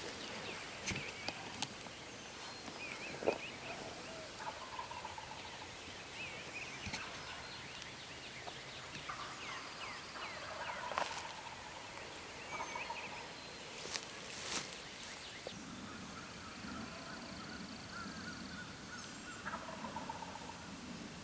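Wild turkeys gobbling, several short gobbles scattered through, with a few sharp clicks.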